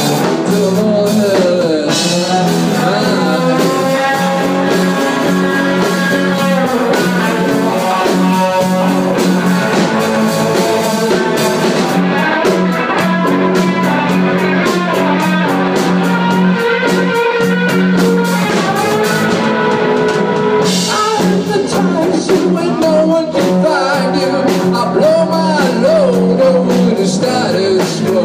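Live rock band playing: two electric guitars, bass guitar and drum kit, loud and continuous.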